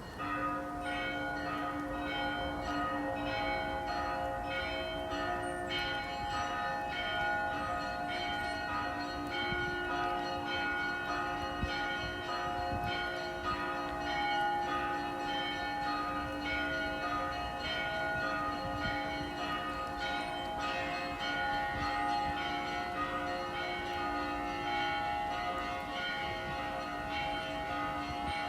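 Church bells ringing an Easter peal: several bells sounding at once, quick repeated strokes on the higher bells over the long ring of the deeper ones.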